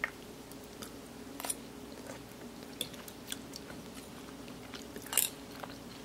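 Budgerigar nibbling a yogurt-topped waffle: small irregular beak clicks and crunches, with louder ones about a second and a half in and near the end, over a steady low hum.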